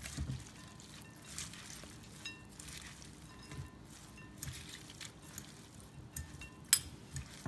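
Metal spoon and fork tossing dressed shredded cabbage and onion in a cut-glass bowl: light clinks of metal against glass about once a second, some with a brief ring, the sharpest near the end.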